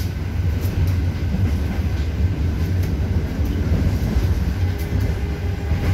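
A local diesel railcar (KRD) running at speed, heard from inside the passenger carriage: a steady low rumble with a few faint, irregular clicks from the wheels and track.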